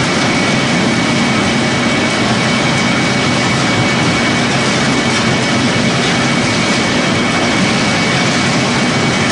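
Pellet making machine running steadily: a loud, even mechanical noise with a thin, steady high whine over it.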